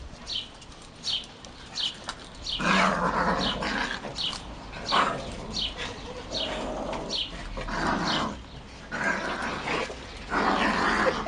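Small Yorkshire terrier × Bichon frise cross dogs growling in play, in several bouts of about a second, the loudest about a quarter of the way in and near the end.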